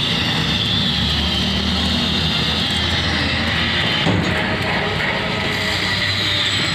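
Steady mechanical rumble with a hiss over it, like machinery or an engine running without change. There is one short click about four seconds in.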